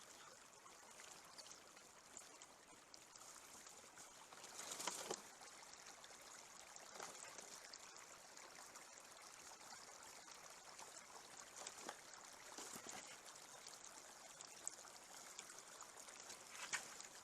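Faint, steady trickling of a small spring meltwater stream, with a few soft rustles and knocks, the loudest about five seconds in.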